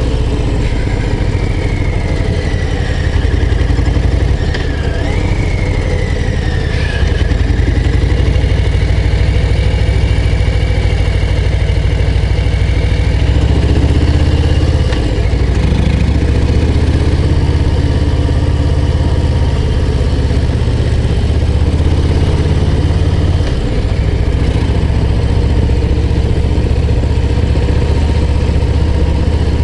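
Harley-Davidson Low Rider ST's V-twin engine running steadily under way, with the engine note dipping briefly about halfway through and again later.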